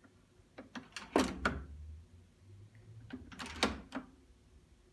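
Levers of a model mechanical interlocking frame being worked, with the linkage moving a ground disc signal: two bursts of metal clicks and clunks, about a second in and again about three and a half seconds in.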